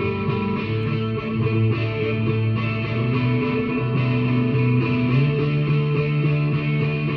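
Solidbody electric guitar picked slowly, with held notes ringing out and the pitch changing every second or so.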